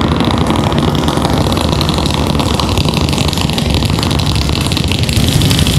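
Loud, steady, dense rumbling noise from a sound installation's loudspeakers. Strong bass sits under a wide hiss, unchanging throughout.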